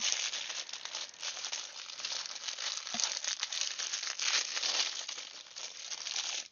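Plastic packaging crinkling steadily as it is handled and pulled at, a dense crackle of small clicks that stops suddenly near the end.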